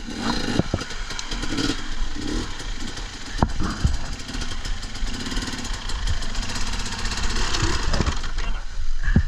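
Dirt bike engine running at low revs, with several sharp knocks and clatter.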